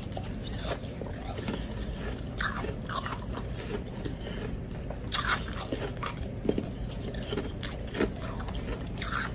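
Biting and crunching powdery blended ice, with crisp crunches in irregular bursts about a second apart and chewing between them.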